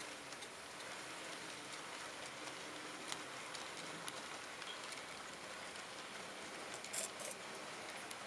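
HO scale model freight train, hopper cars and then a caboose, rolling past on the track: a steady hiss of small wheels on rail, with a few sharp clicks, the loudest a little before the end.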